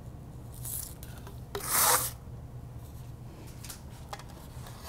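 A metal bench scraper slides across parchment paper: a faint scrape just under a second in, then a louder rasping scrape of about half a second about two seconds in, as cut cookie dough is lifted.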